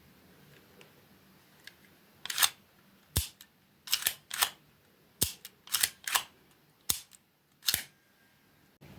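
Vintage 35mm film camera being worked by hand: about ten sharp mechanical clicks, some in quick pairs, starting a couple of seconds in.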